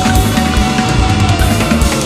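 Loud punk rock from a live band, with heavy drumming and a held high note that bends downward about two-thirds of the way through.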